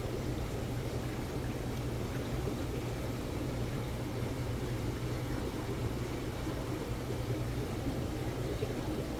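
Saltwater aquarium's pumps and filtration running: a steady low hum under an even rush of moving water.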